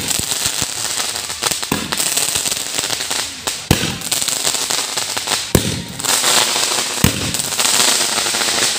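Fireworks going off: a steady spraying hiss of sparks, with five sharp bangs about every two seconds.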